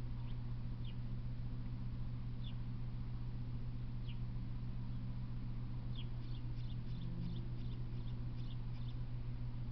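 Small birds chirping: scattered short, high, falling chirps, then a quick run of many chirps about six seconds in, over a steady low hum.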